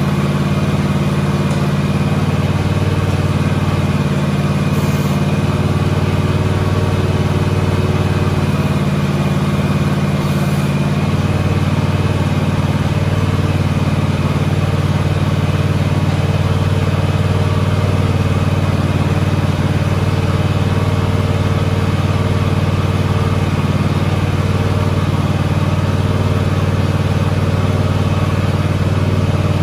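John Deere X580 garden tractor's V-twin engine idling steadily. The low engine note wavers during the first ten seconds or so as the hydraulic sleeve hitch lifts the weights, then settles.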